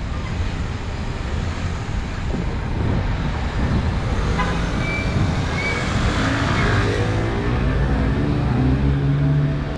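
Street traffic on a city avenue: cars passing with a steady low rumble, and an engine drone that grows louder and steadier over the second half. Two short high chirps about halfway through.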